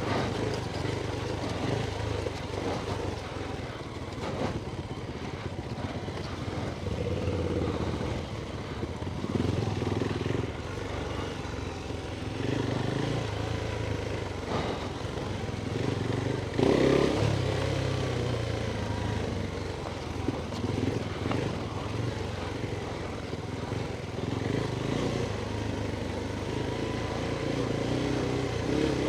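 Adventure motorcycle engine running under way off-road, its revs rising and falling with the throttle. There is a sharp knock about seventeen seconds in.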